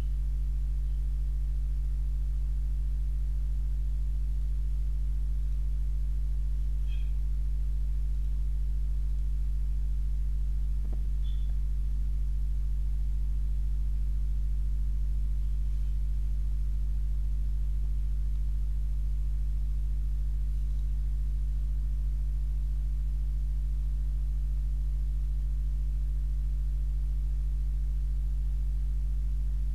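Steady low electrical hum, a deep tone with a stack of evenly spaced overtones above it, unchanging throughout.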